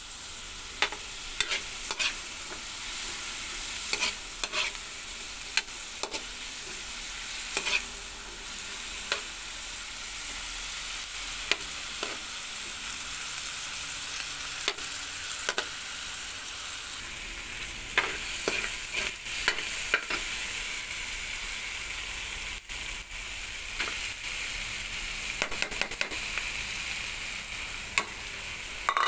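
Pork, tomatoes and onions sizzling in oil in a wok, stirred with a metal spatula that scrapes the pan and knocks against it now and then in sharp clicks.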